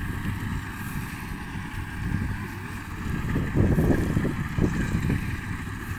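Wind buffeting the microphone in gusts, swelling about three and a half seconds in, over a faint steady machine hum.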